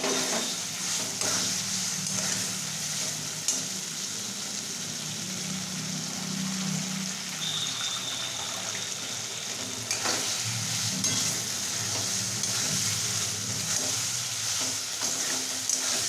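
Fried paneer pieces sizzling in masala in a steel wok, with a steel spatula stirring and scraping against the pan; the scraping gets busier about two-thirds of the way through.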